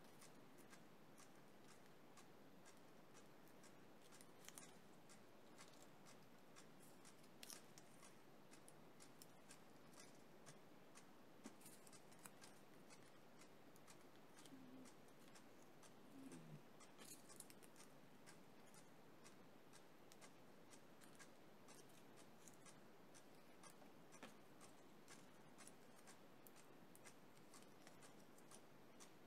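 Near silence: faint room hiss with occasional soft, irregular clicks and rustles of paper flowers being handled and pressed into place.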